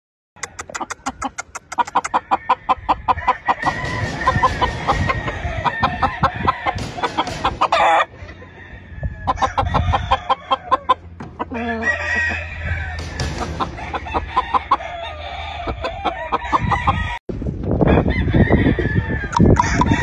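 Gamefowl roosters crowing and clucking, several birds calling at once with rapid repeated clucks. The sound breaks off for an instant about three seconds before the end.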